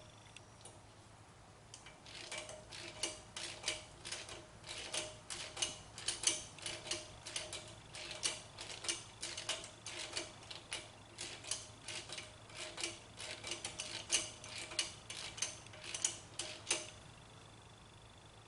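Hand tools working on metal engine parts: a long run of sharp metallic clicks, several a second, starting about two seconds in and stopping near the end.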